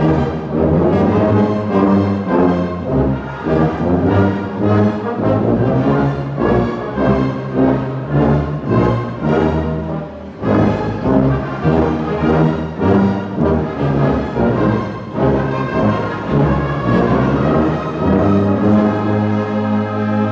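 Large church orchestra led by brass, with tubas and horns, playing a hymn in full chords, with a short break between phrases about halfway through and the sound tapering off near the end.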